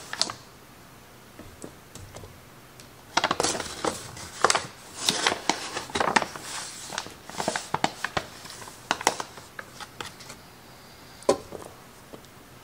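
Measuring cup scooping and scraping through bread flour in a paper flour bag, with the paper crinkling: a busy run of scrapes and taps for several seconds after a quiet start, then one sharp tap near the end.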